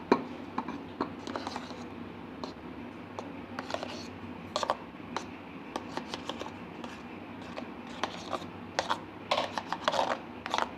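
A spoon scraping and clinking against a stainless steel bowl as stiff whipped egg whites are pushed out into a caramel-lined steel tin. Irregular scrapes and clicks, busiest near the end.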